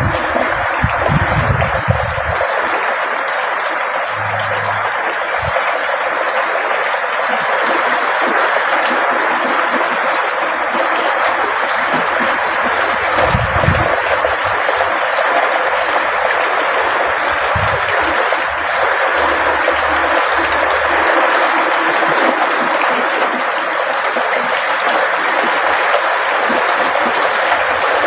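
Heavy rain pouring down in a steady, loud hiss, with a few brief low thumps around the start and about halfway through.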